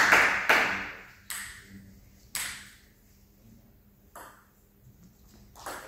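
Table tennis ball hits: four sharp, separate pings spaced a second or more apart, each ringing briefly in the hall.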